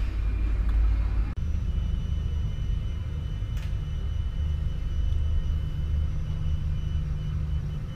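Airport apron noise: a steady low rumble with a thin, steady high-pitched whine over it, broken by a short cut a little over a second in.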